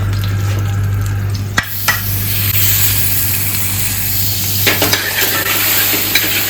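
Garlic and cumin frying in a hot pan, sizzling while a utensil stirs and knocks against the pan. The sizzle gets much louder about a second and a half in, just after a couple of sharp knocks, as if something has gone into the pan.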